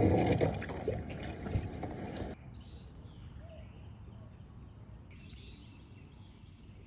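Kayak paddling: paddle splashes and a few knocks against the hull for about two seconds, then it cuts off abruptly to a faint outdoor background with a few faint chirps.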